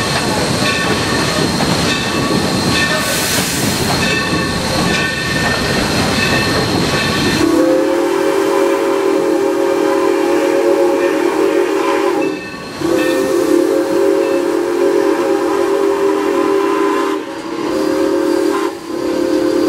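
Steam locomotive running with hiss and rail noise, then its multi-note chime whistle blown for a grade crossing, heard from the cab of Mikado No. 3025: two long blasts, a short one, and a final long one starting near the end.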